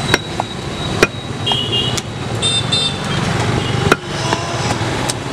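Butcher's cleaver chopping goat meat on a wooden log block: five sharp chops roughly a second apart. Steady street traffic noise runs underneath, with a couple of brief vehicle horn toots.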